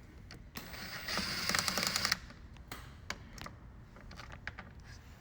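Ratchet wrench clicking rapidly for about a second while the rear bumper bolts are worked, then scattered light clicks and knocks.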